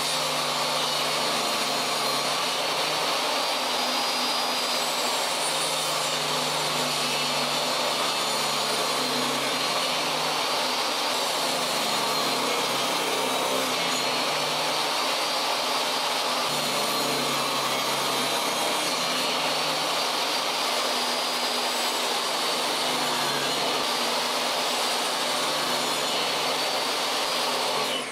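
Portable table saw running and ripping pallet boards into narrow strips: a steady loud whine of blade and motor whose pitch dips slightly and recovers as the wood is fed through. Right at the end the saw is switched off and begins to spin down.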